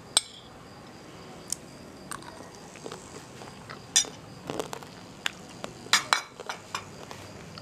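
A metal spoon clinking and scraping against a cut-glass dish while rice is scooped from it: a dozen or so light, irregular clinks.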